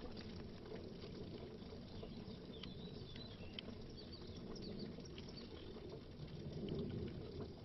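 Faint underwater water sound: a steady low wash with scattered tiny high pops and ticks of small bubbles, swelling slightly near the end.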